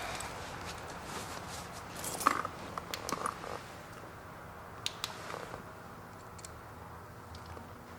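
A few light clicks and knocks of small parts being handled, over a low steady hum.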